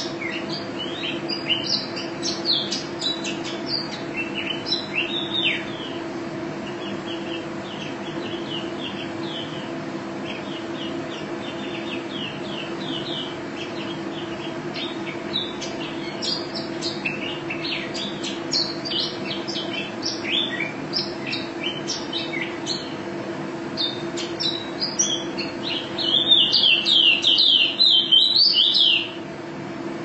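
Caged white-eye (pleci) singing long runs of rapid, high twittering chirps and trills, with a louder, denser run near the end that stops abruptly. A steady low hum sits underneath.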